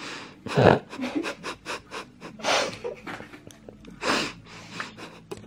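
A woman drinking from a large plastic bottle of Diet Coke, with one loud gulping sound about half a second in. She then pants and breathes out hard a few times as she catches her breath.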